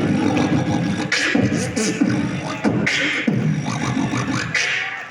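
Beatboxing: a steady Western-style beat of vocal kick drums and hi-hat and snare sounds made with the mouth, amplified through a microphone. The beat drops out briefly near the end.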